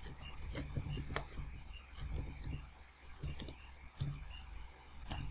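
Typing on a computer keyboard: a run of irregular key clicks as a command is entered, with one sharper keystroke near the end, over a faint low hum.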